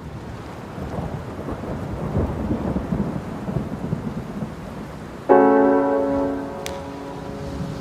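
Rain with a low rolling rumble of thunder fading up, joined about five seconds in by a loud piano chord that is struck and left to ring.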